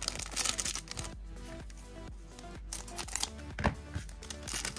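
Trading-card booster pack wrapper crinkling and tearing as the pack is opened by hand, in a string of sharp crackles, over steady background music.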